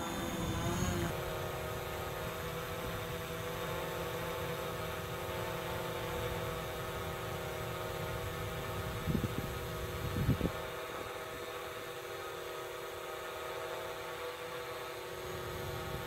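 DJI Mavic Pro quadcopter hovering on 8331 low-noise propellers: a steady whine of several tones from the four motors and blades, which settles in pitch about a second in. Two short louder noises break in about nine and ten seconds in.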